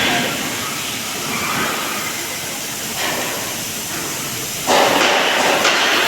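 Welding hiss and crackle, softer at first, then suddenly louder about three-quarters of the way through.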